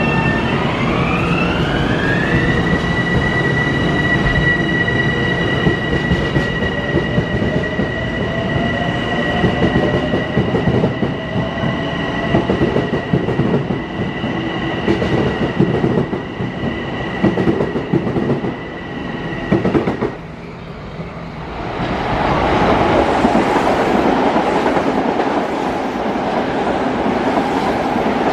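Metro-North M7A electric multiple unit pulling away, its traction motors whining up in pitch over the first two or three seconds and then holding a steady high whine over wheel and rail noise, with a second tone rising partway through. The whine stops about twenty seconds in, and a Metro-North M8 train then passes on the near track with loud, steady wheel and rail noise.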